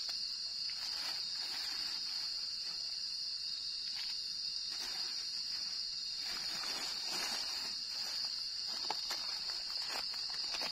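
Steady high-pitched chorus of night insects, with scattered light crackles and small knocks from the wood cooking fire as it is tended.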